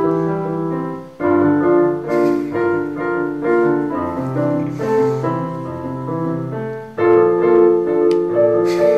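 Piano playing a slow, sad piece in held chords, with fresh chords struck loudly about a second in and again about seven seconds in.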